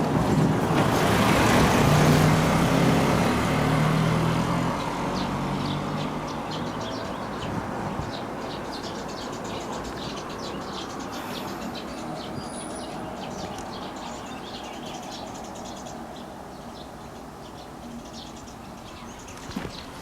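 A motor vehicle passes close by, its engine hum and road noise loudest in the first few seconds and then fading away. Quieter road ambience follows, with short high chirps from birds.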